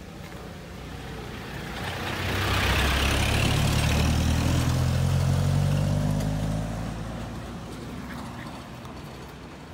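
A motor vehicle drives past, its engine and tyre noise building up about two seconds in, peaking for a few seconds, then fading away.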